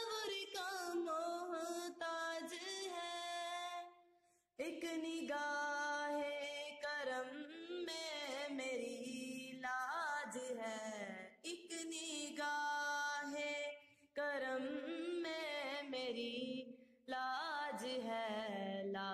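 A single voice singing a devotional naat melody in long, drawn-out phrases with sliding ornaments and no clear words. It breaks off for short pauses about four seconds in and twice more near the end.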